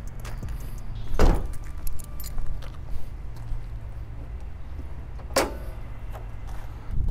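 A Mazda MX-5's door and bonnet being handled: a sharp clunk about a second in, small metallic clicks and rattles, then a second sharp clack about five seconds in as the bonnet is released and lifted, over a steady low hum.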